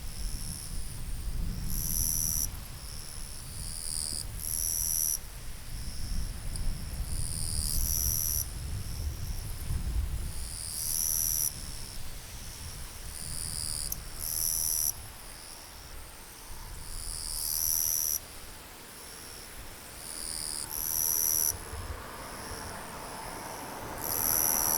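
Outdoor nature ambience: high-pitched chirping calls repeating in short bouts every second or two, over a low rumble that fades away about two-thirds of the way through.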